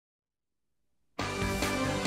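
Silence, then background music starts abruptly about a second in, with a steady beat.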